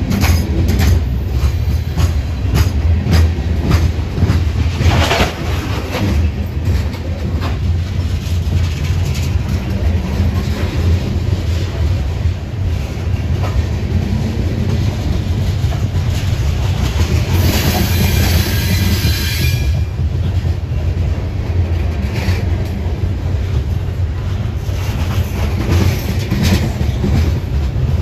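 Coal cars of a freight train rolling past: a steady low rumble with wheels clacking over rail joints. A high metallic screech from the wheels rises for about two seconds a little past the middle.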